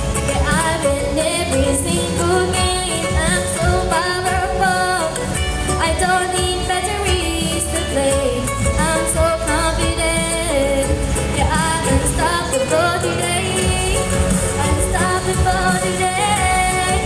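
Pop song played loud through speakers: a singer's melody, with gliding runs, over a backing track with a steady beat.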